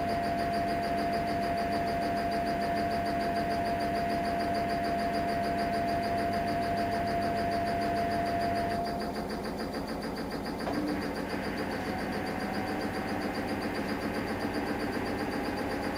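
Samsung Eco Bubble washing machine running early in its cycle: a steady whine over an even hum that stops about nine seconds in. A click follows, then a fainter, higher tone.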